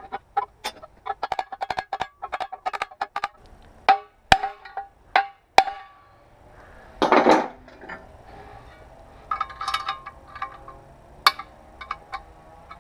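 Sharp metallic clinks and taps with a brief ring as a steel angle-grinder guard and its clamp hardware are handled and worked. They come close together over the first few seconds and again near the ten-second mark, with a short scraping rush about seven seconds in.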